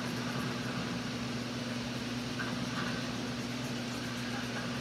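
Steady low machine hum with an even hiss behind it, from a running household appliance or motor.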